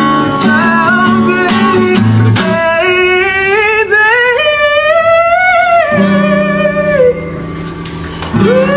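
A man singing to his own strummed acoustic guitar. In the middle he holds one long note that climbs in pitch while the guitar falls back. The guitar then returns, the sound goes quieter for about a second, and the voice comes back near the end.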